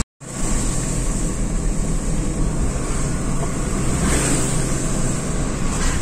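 Steady road and wind noise of a moving car, after a brief dropout at the very start.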